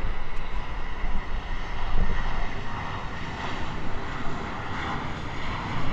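American Airlines Airbus A321's twin jet engines at takeoff power as it departs: a steady rush of jet noise with a faint high whine.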